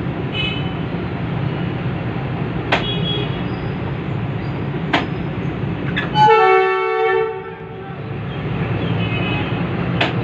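Diesel locomotive running with a steady low rumble, heard from the cab as it rolls slowly through a level crossing, with a few sharp clicks. About six seconds in, the locomotive's horn sounds one blast of about a second and a half, the loudest sound here, warning people at the crossing.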